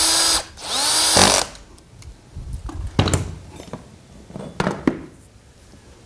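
Cordless drill-driver driving a bolt back into an angle grinder's gear head: two short runs, each a whine that rises in pitch as the motor spins up, stopping about a second and a half in. A few scattered clicks and knocks follow.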